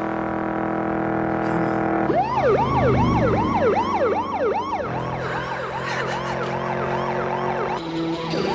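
Police car siren wailing in a fast yelp, about three rising-and-falling sweeps a second. It starts about two seconds in over a steady drone and drops in level after about five seconds.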